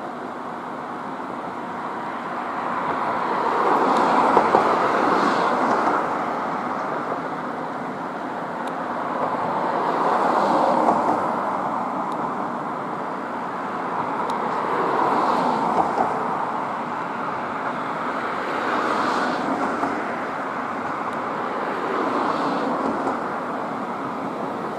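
Road traffic passing, cars swelling up and fading away one after another every few seconds.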